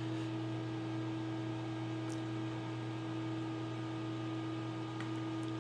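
Steady low electrical or machine hum, with a fainter higher tone above it and no other activity.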